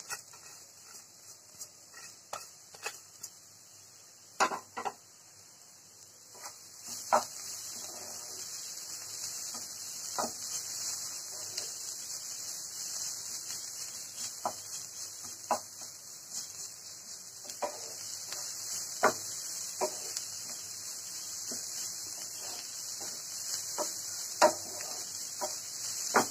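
A spatula stirring and scraping a dry cauliflower and pea filling in a nonstick frying pan, with irregular knocks of the spatula against the pan and rubbing in between. A steady hiss of frying sets in about seven seconds in.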